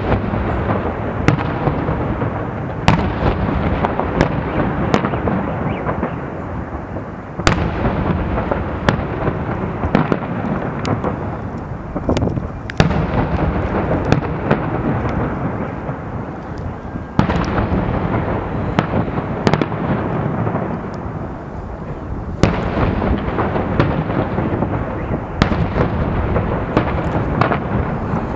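Fireworks salute: sharp bangs every few seconds over a steady low rumble of overlapping bursts.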